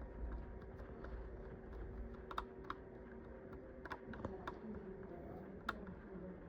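Scattered light clicks and taps from handling the boxed diecast model and its packaging, about five sharper ones, over a faint low steady hum.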